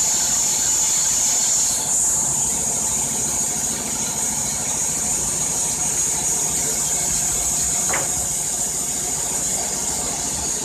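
Kohler Pro-15 petrol engine of a Wood-Mizer LT-15 band sawmill running steadily at idle under a constant high hiss, with one short sharp sound about eight seconds in.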